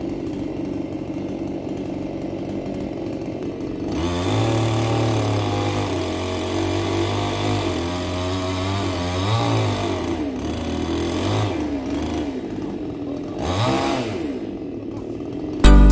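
Gasoline Stihl chainsaw engine running: a steady low idle for about four seconds, then it picks up and runs louder, its pitch rising and falling a few times.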